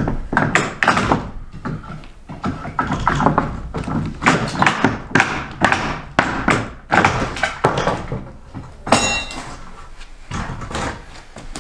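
Irregular wooden knocks and thuds as old pine floorboards are pried loose and lifted from the floor, with a brief squeak about nine seconds in.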